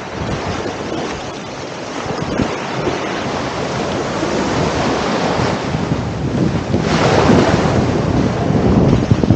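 Surf washing on the beach with wind buffeting the microphone, the wash swelling louder about seven seconds in.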